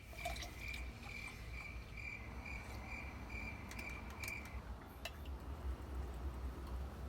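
A cricket chirping in a steady rhythm, about two chirps a second, stopping about two-thirds of the way through. A few light clicks and taps can be heard over a low background rumble.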